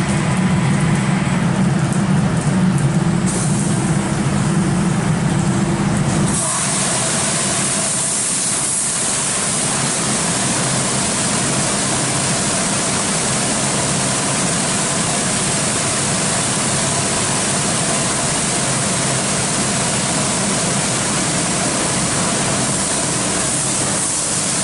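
Tammermatic UltraLux rollover car wash at work, heard from inside the car. A strong low machine hum runs for about the first six seconds, then drops away, and a steady hiss of water spraying over the car's body carries on.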